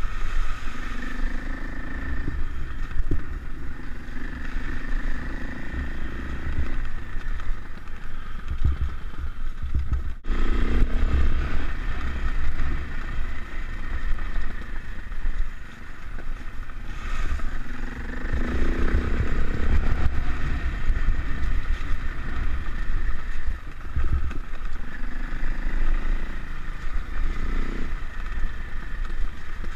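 Dirt bike engine running while the bike is ridden, its note changing with the throttle, under heavy wind rumble on the helmet or bike camera's microphone.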